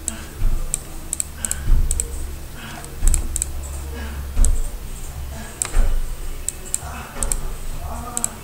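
Computer keyboard being typed on: irregular clicks of keys, many landing with a low thud on the desk.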